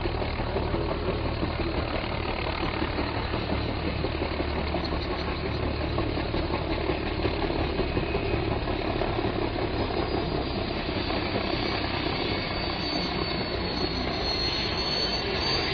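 Small single-rotor helicopter flying low overhead: steady rotor and engine noise with a low throb, a faint high whine swelling near the end.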